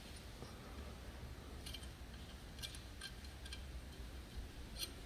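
Faint, scattered light clicks, about five over a few seconds, from small metal parts being handled at an aluminium gearbox bellhousing, over a low steady hum.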